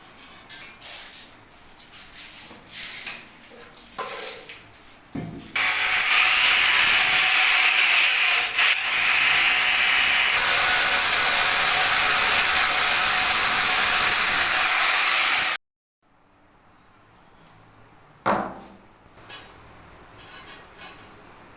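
A few clicks and knocks, then water running hard from a basin mixer tap, a loud steady rush for about ten seconds that stops abruptly.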